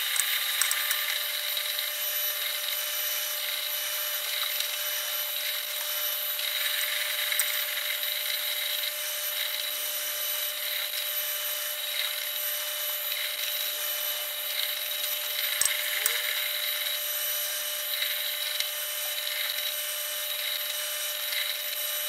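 Pillar drill running steadily, its 4.2 mm twist drill boring tapping holes for an M5 thread into a block of aluminium: a constant motor tone with the hiss of the cutting and a few faint ticks.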